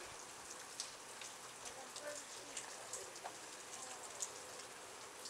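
Steady rain falling during a thunderstorm: a soft even hiss dotted with many small sharp drip ticks from drops hitting nearby surfaces.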